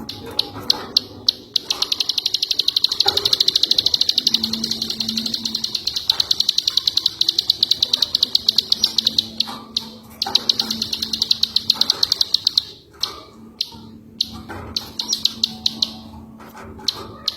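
Ciwah songbird's masteran call: a rapid, dry chattering trill of clicks, repeated in long runs with short breaks, over a faint low steady hum.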